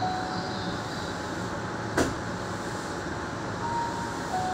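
Stopped electric train at an underground platform: a steady hum of equipment and ventilation. A two-note falling chime sounds at the start and again near the end, about four seconds apart. One sharp click comes about two seconds in.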